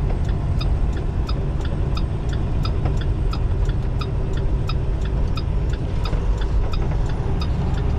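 Semi-truck diesel engine running steadily, heard from inside the cab, with the turn-signal relay clicking at an even rate.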